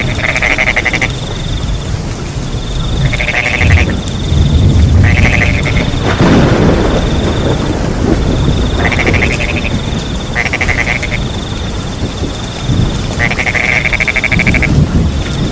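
Frogs croaking in repeated pulsed calls, each under a second long and one longer near the end, over a steady high trill of crickets, with a low rumble of rain underneath that swells briefly about six seconds in.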